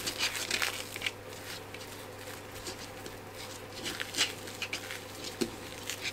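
Thin plastic sheet crinkling and rustling as hands roll a log of ground pork mixture up inside it on a plastic chopping board, in short crackles clustered in the first second and again about four seconds in.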